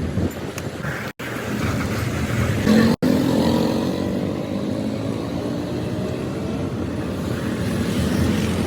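An engine running steadily close by, cut off twice by brief drops to silence in the first few seconds.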